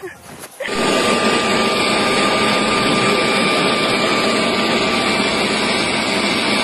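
Handheld leaf blower running steadily, a rush of air with a steady high whine in it. It cuts in suddenly about half a second in.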